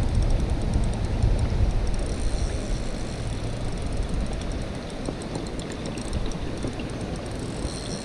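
Steady rushing of stream water, with a low rumbling noise that is heaviest over the first two seconds and then eases off.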